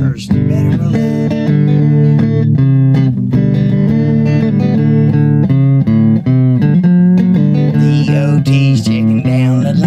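Guitar-led music with bass, playing without a break.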